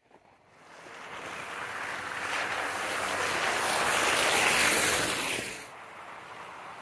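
Jeep Gladiator pickup driving up and past on a slushy, muddy snow road, its tyres hissing and splashing through the wet slush, swelling to its loudest about four to five seconds in. The sound then drops suddenly to a lower steady hiss as the truck approaches again from farther off.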